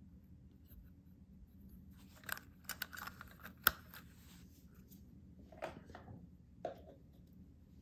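Small plastic clicks and rattles from a Sylvania fluorescent lamp starter being handled in its wired plastic holder, with one sharp click about three and a half seconds in, the loudest sound. Two softer knocks follow as the starter and holder are set down.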